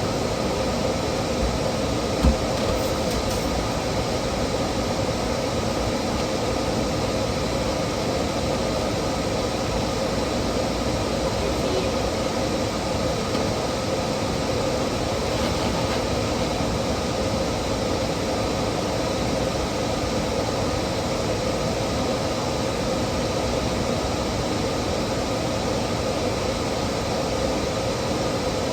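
A steady mechanical drone: an even hiss with a constant hum underneath, and one short knock about two seconds in.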